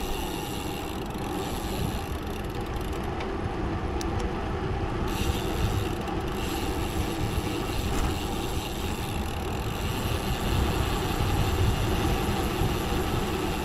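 Road bike descending at speed: wind rushes and buffets the microphone over the steady hum of the rolling tyres.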